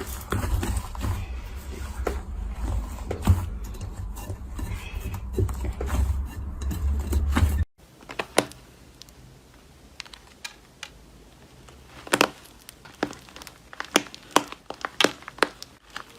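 Slime being handled: a dense run of crackly clicks and pops over a low rumble. It cuts off abruptly about eight seconds in, and sparse, sharp pops and clicks follow on a quieter background.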